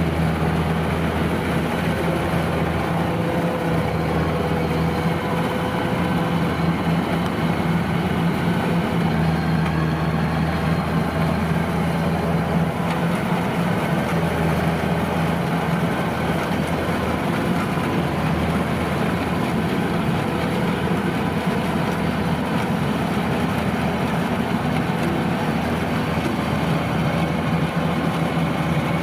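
Kubota DC-93 rice combine harvester's diesel engine running steadily: a continuous, even drone with no change in speed.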